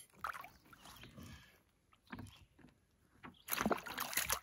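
Small knocks and handling noises in a small boat, then about a second of louder swishing near the end.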